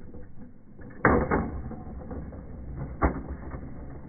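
Toy car running and bouncing over loose rubber mulch: a rough, crunching rattle with two sharp knocks, about a second in and again about three seconds in.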